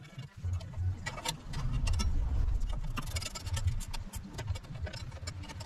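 A go-kart's steel rear bumper being bolted to the chassis: irregular metallic clicks and clinks of bolts and tools, with dull knocks as the bumper and bracket are handled.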